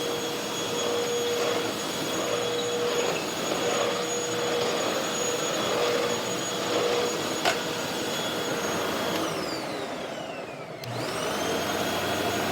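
Hoover WindTunnel T-Series Rewind upright vacuum cleaner running with a steady high whine. About nine seconds in the motor winds down, its whine falling in pitch, then spins back up near the end.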